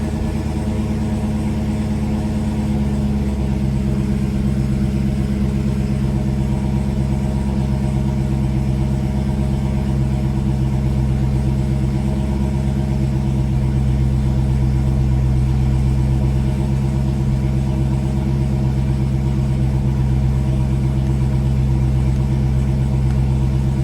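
Supercharged 6.2-litre Hemi V8 of a modified Dodge Challenger Hellcat, fitted with long-tube headers and exhaust cams, idling steadily; its note shifts slightly about three seconds in.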